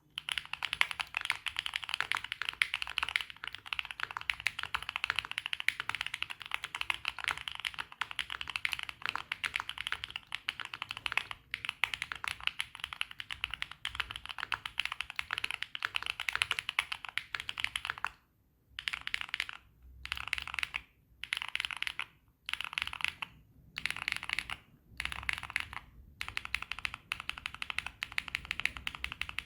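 Typing on a Neo80 mechanical keyboard with Epomaker Wisteria tactile switches (POM+PTFE stems, PC top housing) on a polycarbonate plate with full foam, under Swagkeys Classic Red keycaps. Fast, continuous keystrokes for about 18 seconds, then short bursts of typing with brief pauses between them.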